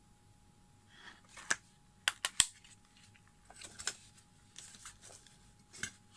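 Hard plastic Qi wireless charging stand being handled and turned over in the hands: a cluster of sharp clicks and knocks about two seconds in, then lighter scrapes and taps.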